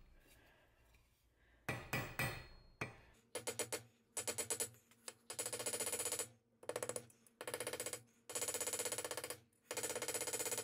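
Ball-peen hammer peening copper wire into a groove in a metal part resting on a steel block. A few separate taps come first, then from about three seconds in, runs of very rapid light taps, each run about a second long with short breaks between.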